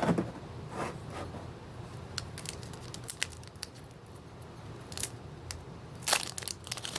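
Pokémon cards and a foil booster-pack wrapper being handled: scattered light clicks and crinkles, with a louder rustle about six seconds in.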